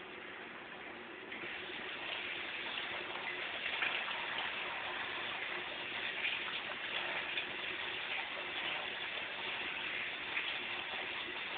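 Beef roast searing in a hot pan on a stovetop burner: a steady sizzle with light crackling that grows louder about a second in.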